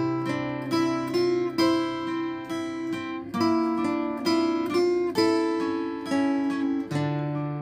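Acoustic guitar playing an instrumental interlude of a slow ballad: picked notes sounding one after another, ringing over held bass notes, with no singing.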